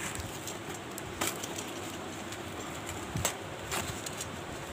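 Corrugated cardboard box being cut open with a utility knife and pieces torn off by hand, with a few short sharp snaps and crackles over a steady background hiss.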